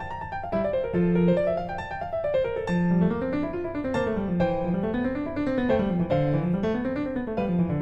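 Background piano music: flowing rising-and-falling arpeggios over a bass line.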